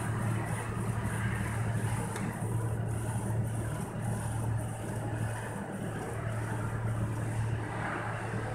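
Epson L1800 inkjet printer running a print job, its print-head carriage shuttling back and forth over the film. A steady low hum runs under a regular repeating pattern about twice a second.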